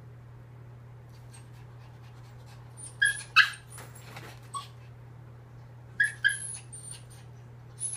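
Chihuahua shut in a zipped dog-stroller kennel giving short, high yips in quick pairs: two about three seconds in, another a second later, two more around six seconds and one near the end. These are yips of distress at being left alone. A steady low hum runs underneath.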